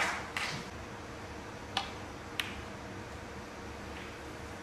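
Two sharp clicks of snooker balls being struck, about two thirds of a second apart near the middle, over a quiet arena hush.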